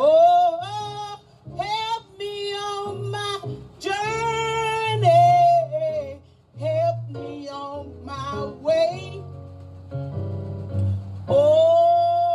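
A woman sings a gospel solo into a microphone over the PA, in long held notes that slide up into pitch, without clear words. Low instrumental accompaniment plays underneath.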